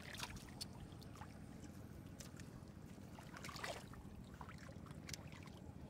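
A hand groping in shallow muddy paddy water: faint sloshing and small splashes, with a slightly bigger splash a little over three and a half seconds in, over a low steady rumble.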